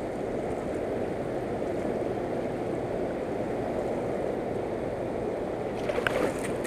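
Steady rush of the fast, turbulent river current. About six seconds in, a brief burst of sharp clicks and knocks.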